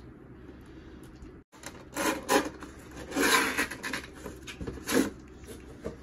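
Cardboard packaging being opened and handled by hand: rubbing and scraping in several loud bursts, the longest about three seconds in.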